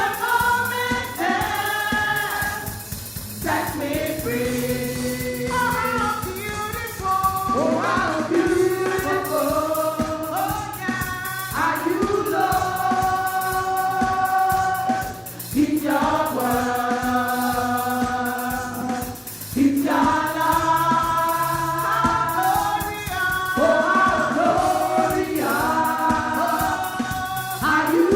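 Gospel choir singing a worship song in long held phrases over instrumental accompaniment with a steady beat.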